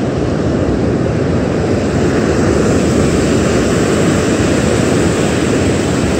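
Surf breaking on a sandy beach, with wind buffeting the microphone: a loud, steady rushing noise.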